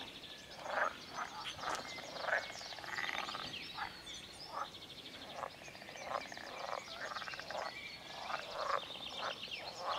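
A breeding chorus of many frogs croaking at once, which the speaker takes for common frogs: short calls overlapping and repeating in quick succession, with faster rattling calls above them.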